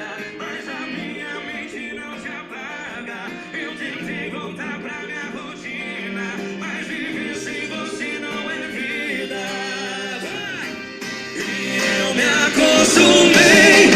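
Music with a singing voice, played through a Gradiente R-343 receiver; it gets louder about eleven seconds in.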